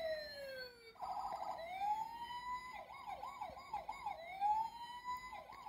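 Toy fire truck's electronic siren sound effect from its small built-in speaker: a long falling wail for the first second, then rising wails broken by quick repeated up-and-down yelping sweeps.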